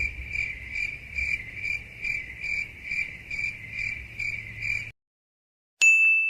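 Crickets chirping, the 'awkward silence' meme sound effect: even, repeated chirps about two and a half a second, stopping about five seconds in. A short bell-like ding follows near the end.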